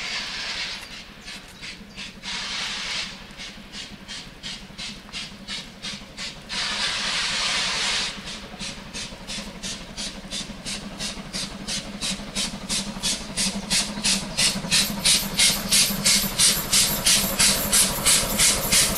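Class 52 steam locomotive 52 8154 working a passenger train: its two-cylinder exhaust beats in a quick, even rhythm, getting steadily louder as it approaches. Three loud bursts of hissing steam from the open cylinder drain cocks come in the first half.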